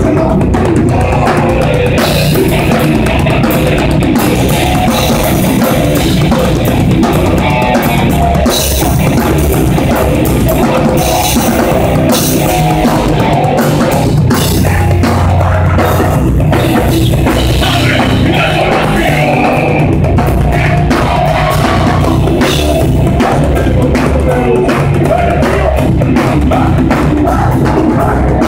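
Heavy metal band playing live at full volume, with a drum kit prominent.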